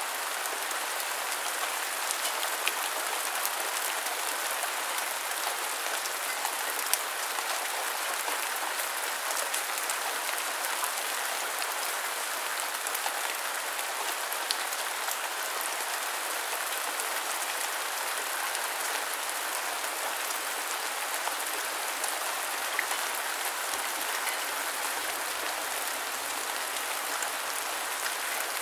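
Steady rain falling, an even hiss with scattered ticks of individual drops and a few louder single drops.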